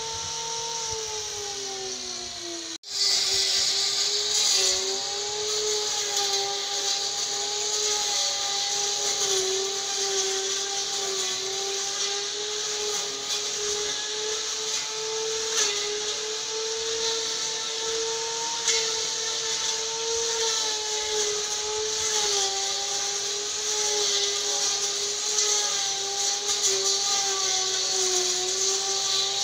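Electric angle grinder driving a brush cutter blade on a long bar, running at high speed and cutting grass: a steady high whine with a bright hiss that wavers slightly in pitch as the blade takes the grass. Near the start the whine sags in pitch, then cuts out abruptly about three seconds in and comes straight back at full speed.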